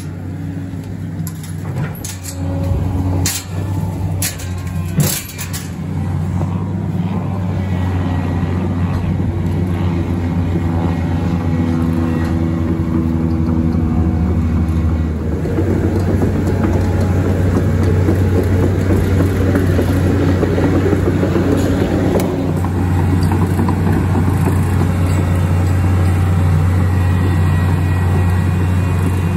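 A large engine running steadily, with a few sharp metallic clicks in the first six seconds and a rougher, louder running sound from about halfway through.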